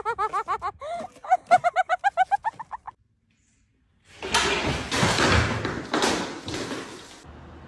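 An animal's short, pitched calls repeated quickly, several a second, for the first few seconds. After a brief silence comes a noisy stretch of knocks and clatter.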